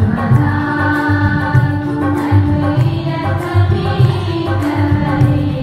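Music of a Tamil devotional hymn to St. Sebastian: long held melody notes over a steady low beat.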